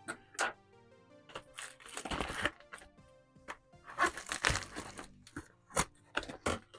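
Packaging crinkling and crackling in irregular bursts as a subscription mailer is opened, over soft background music.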